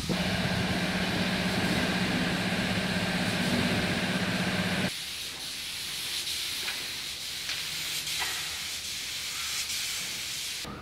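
A steady machine hum with hiss that cuts off suddenly about five seconds in, leaving a fainter steady hiss.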